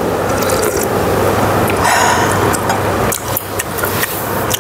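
Webfoot octopus and pork belly stir-fry sizzling and crackling in a hot pan, with a steady low hum underneath. The sizzle swells briefly about two seconds in.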